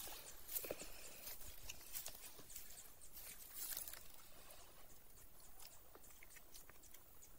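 Faint crackling and small irregular clicks of crispy fried fish being pulled apart by hand and chewed. The clicks thin out about four seconds in.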